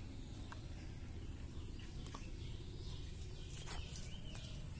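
Quiet outdoor ambience: faint bird chirps, mostly near the end, over a low steady rumble, with a couple of small clicks.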